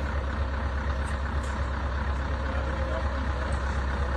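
Heavy machinery running steadily, a low engine rumble under an even hiss.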